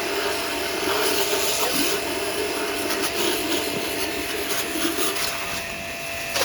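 A hand-held power tool rasping steadily against metal, its motor pitch wavering up and down with the load.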